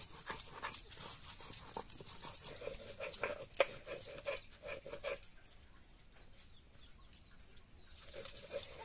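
Stone muller rubbed back and forth on a flat stone grinding slab, crushing red chillies and onion: rhythmic gritty scraping with small knocks, becoming quieter about five seconds in.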